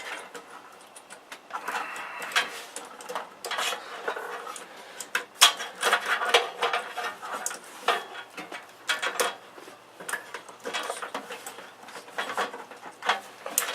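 Irregular clicking and clattering of computer parts and cables being handled and rummaged through, hard plastic and metal pieces knocking together.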